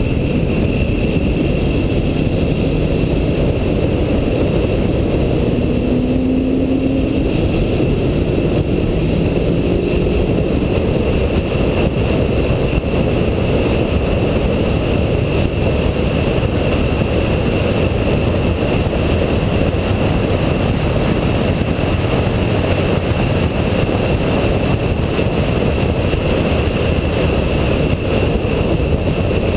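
2007 Shelby GT500 at track speed: a steady, loud rumble of engine and wind noise on a camera mounted outside the car, with a faint rise in engine pitch about six seconds in.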